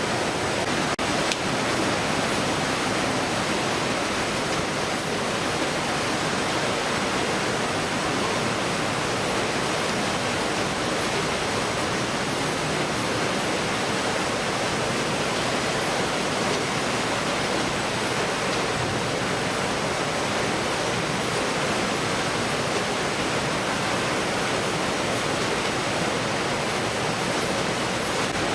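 Steady, unbroken rushing noise, level and even throughout, with no separate knocks or tones.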